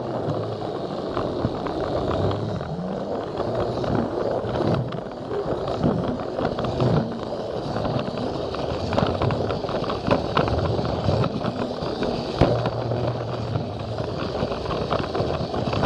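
Plarail toy train running along plastic track, its small motor and wheels giving a steady rattling rumble with frequent small clicks, heard from a camera riding on the train.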